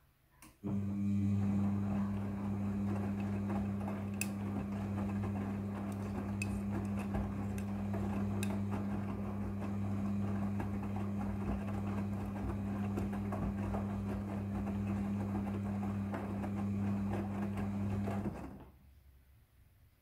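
Midea front-loading washing machine turning its drum in a wash cycle: the motor starts up with a steady low hum and the wet load tumbles and swishes inside, with a few sharp clicks, then the drum stops and the sound dies away near the end.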